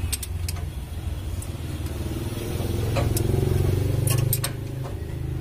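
Spanner and screwdriver clicking against the rocker arms and adjusting screws of a Mitsubishi 4D56 diesel as the valve clearance is set, with the engine stopped. Under the clicks runs a steady low engine drone that swells in the middle and eases off again.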